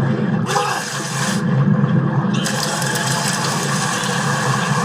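Rushing, churning water: a continuous loud wash of noise with a hiss that comes and goes.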